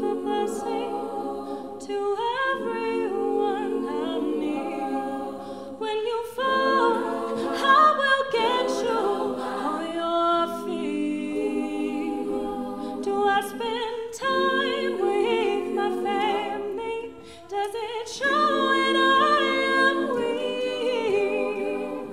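All-female a cappella group singing sustained chords in close harmony, with a solo voice carrying the melody over the backing voices.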